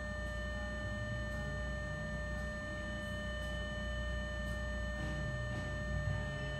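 A steady, high electrical whine of several pure tones over a low hum, with a few faint ticks.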